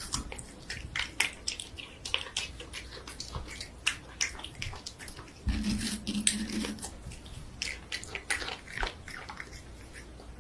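Cat licking and eating juicy watermelon flesh: quick, irregular wet clicks and smacks of its tongue and mouth, with a short low hum about halfway through.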